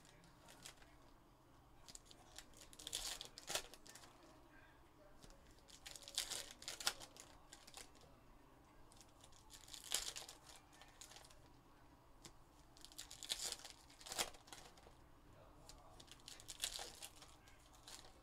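2021 Upper Deck Goodwin Champions foil card packs being torn open and crinkled one after another: five bursts of crackly rustling, about every three and a half seconds, with light clicks in between.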